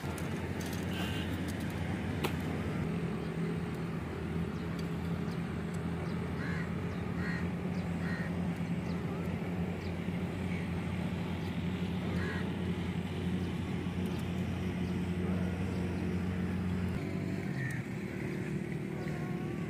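A motor drones steadily as a low hum, changing slightly near the end, while crows caw now and then.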